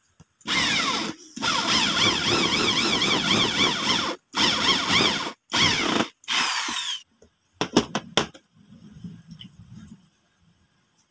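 Power drill running in five bursts, boring into a pine rail, its motor whine wavering up and down in pitch under the trigger and the load. A few sharp clicks follow near the end.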